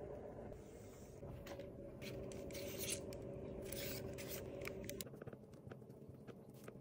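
Faint scraping and rubbing as objects are handled on a desk, with two short scratchy bursts about three and four seconds in, over a low steady hum that stops about five seconds in. A few light clicks follow.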